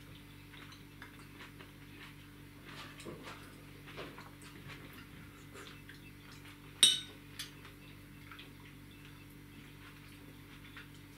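Cutlery clinking and scraping on plates during a meal: small scattered clicks, with one sharp, loud clink about seven seconds in and a lighter one just after. A faint steady hum runs underneath.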